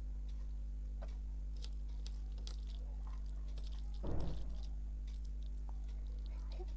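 A person chewing a mouthful of rice and dal, with soft wet mouth clicks and one louder thump about four seconds in. A steady low electrical hum runs underneath.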